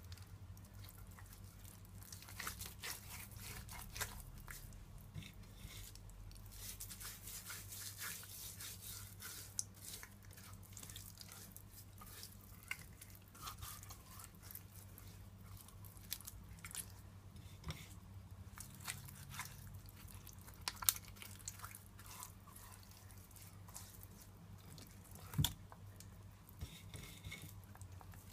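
Hands rubbing seasoning paste into whole raw tilapia in a glass bowl: faint wet squishing and small scattered clicks over a low hum, with a couple of sharper knocks, the loudest near the end.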